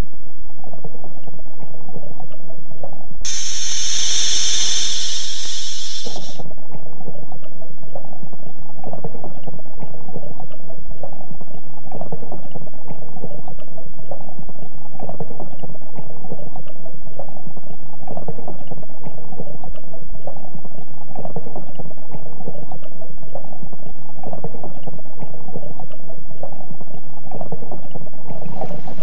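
Stream water rushing and gurgling, a steady churning rumble as heard close to or under the water's surface. A brighter hiss comes in about three seconds in and stops about three seconds later.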